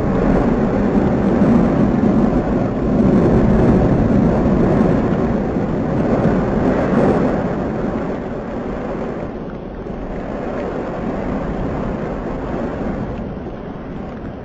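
Fagradalsfjall volcano's erupting cone, spattering lava, making a steady low rumbling roar. It eases a little after about eight seconds.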